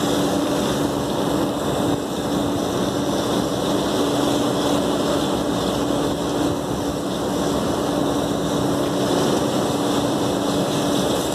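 Steady machine drone with a constant hum, from an air-cooled chiller running, mixed with water from a garden hose hissing onto the condenser coil fins.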